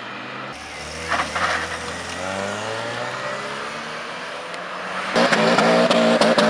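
Modified car engines accelerating away, their note rising. A louder engine comes in about five seconds in, with sharp cracks over it.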